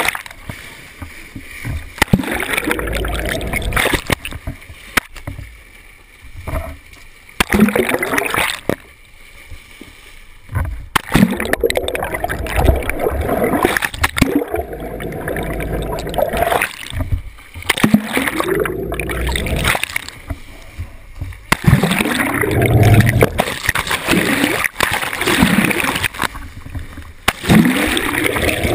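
Seawater rushing and splashing over an underwater camera as it is plunged in and out of the sea beside a moving boat's bow, in repeated surges. Low tones sweep down and back up with each surge.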